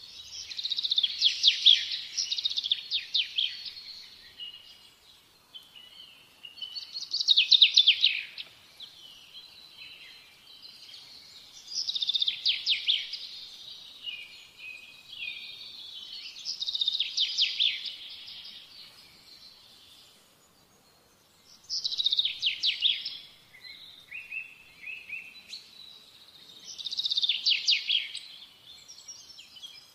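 A bird singing in trilled phrases of about two seconds, repeated roughly every five seconds, with quieter twittering between them.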